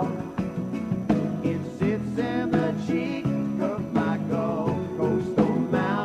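Background music: a country-style song with guitar.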